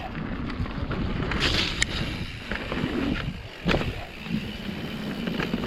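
Wind buffeting the microphone as a mountain bike rolls down a wet trail, with tyre and frame rattle and a few sharp knocks from bumps.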